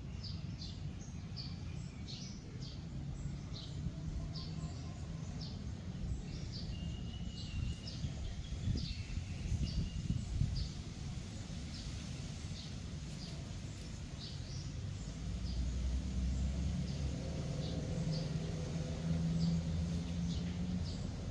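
Outdoor ambience: small birds chirping in short repeated calls, about two a second, over a steady low rumble. In the last few seconds the chirps fade and a low hum grows louder.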